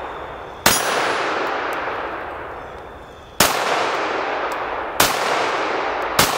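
Smith & Wesson .22 Magnum semi-automatic pistol fired four times at an uneven pace, the shots coming closer together toward the end. Each shot is a loud sharp crack followed by a long echo that dies away over a second or two, with faint short ticks in between.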